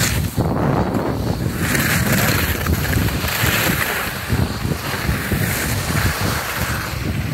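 Wind buffeting the microphone of a phone carried by a skier moving downhill, with the hiss of skis sliding over packed snow that comes and goes in stretches of about a second.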